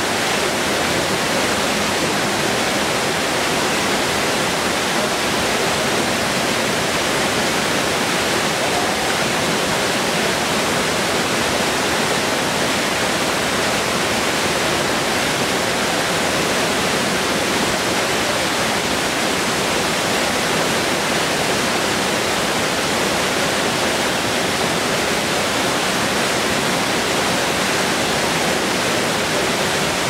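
Small waterfall pouring onto rocks, with the stream running over stones below it: a steady, unbroken rush of water.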